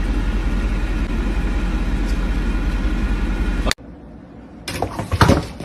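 Steady low rumble like a running vehicle engine and road noise, which cuts off abruptly near the end. After the cut comes a quieter stretch with a few brief knocks or rustles.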